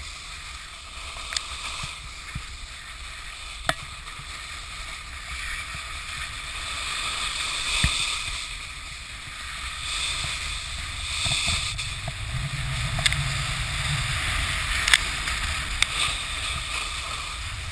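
Snowboards sliding over packed snow: a steady scraping hiss from the edges that swells and fades with the turns, over a low rumble of wind on the microphone, with a few sharp clicks and knocks.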